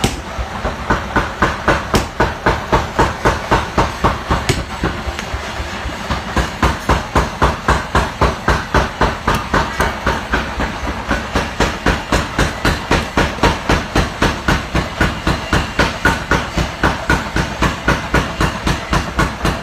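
Steady, rapid hammer blows on steel during forging, about three strikes a second.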